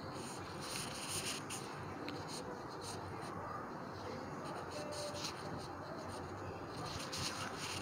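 Steady hiss of a gas stove burner under a small pan of heating oil, with light scratchy rustling now and then as curry leaves are picked off their stems by hand.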